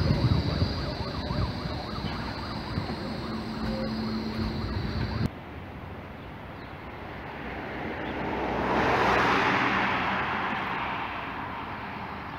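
A De Lijn Albatros low-floor tram rolling past on street track, its running noise carrying a steady high whine, cut off abruptly about five seconds in. Then a rushing noise swells to a peak and fades.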